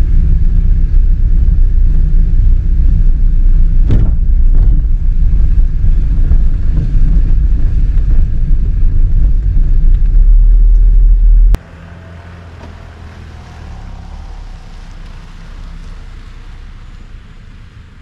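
Heavy, loud low rumble of a vehicle on the move. It cuts off abruptly about eleven seconds in, giving way to a much quieter steady hiss.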